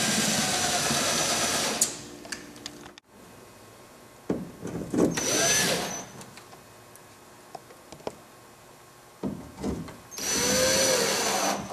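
Ryobi cordless drill driving screws through a shower unit's nailing flange into wooden studs: three runs of the motor, the first stopping about two seconds in, the others about five and ten seconds in. Short clicks and knocks come between the runs.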